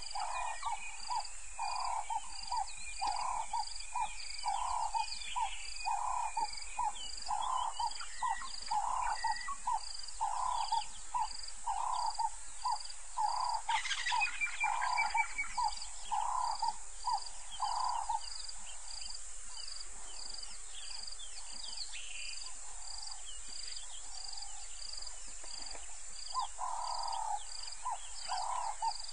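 Frogs calling at a waterhole: a regular series of mid-pitched notes, about two a second, that stops about two-thirds of the way through and starts again near the end, over a faster, high-pitched ticking. Bird chirps come in between, one louder call about halfway through.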